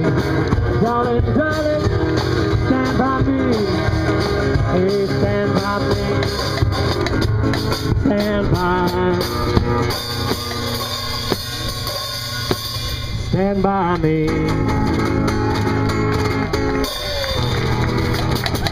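One-man band playing: a strummed acoustic guitar with a bass drum and cymbals keeping a steady beat, and a kazoo carrying a gliding melody line on top.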